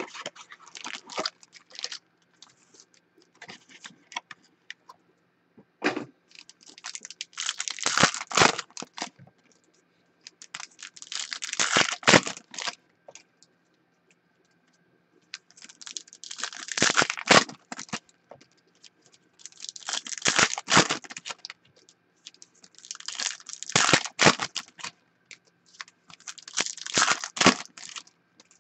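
Foil trading-card pack wrappers being torn open and crinkled by hand, in crackling bursts of a second or so about every three to four seconds.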